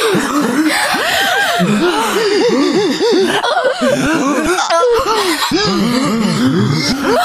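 A large crowd of cartoon character voices laughing together, many overlapping short "ha" bursts at a loud, even level.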